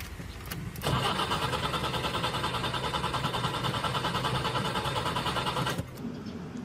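Car's starter motor cranking the engine with an even, rhythmic pulse. It begins about a second in and cuts off suddenly after about five seconds.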